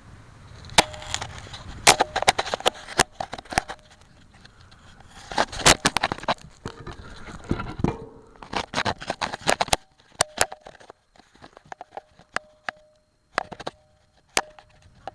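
Irregular clattering: sharp clicks and knocks in clusters, some leaving a short metallic-sounding ring, thinning out to a few isolated strikes after about ten seconds.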